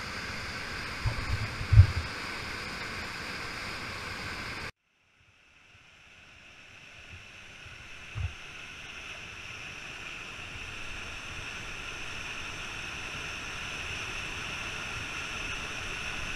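Steady rush of whitewater rapids heard close up, with a few low thumps on the microphone in the first two seconds. The sound cuts out abruptly about five seconds in, then the rushing water fades back in and grows, with one more low thump about eight seconds in.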